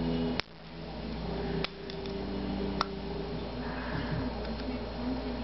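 Three sharp clicks of small hard flashlight parts being handled, over a steady background hiss. After the first click, about half a second in, the hiss drops away and slowly comes back up.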